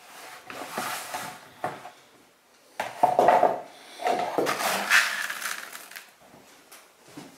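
Dry koi food pellets rattling and rustling in a plastic bucket as a hand digs in and scoops up a handful. The sound comes in two spells, the second one louder and longer.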